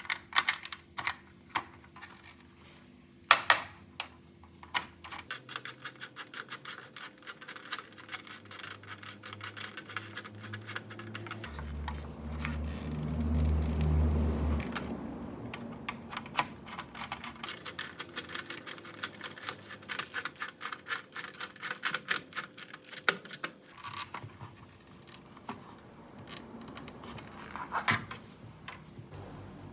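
Rapid light clicks and scratching, dense and irregular, with a low hum that swells and fades about halfway through.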